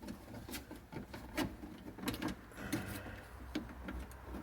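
Scattered light clicks and knocks, about half a dozen, of door lock and handle rods being worked into place inside a Jeep Comanche door.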